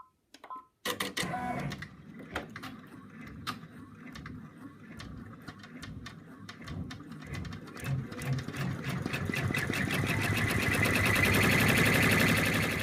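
Embroidery machine stitching at a fast, even pace, starting about a second in and getting louder toward the end. It is sewing the outline that secures the back felt to the front.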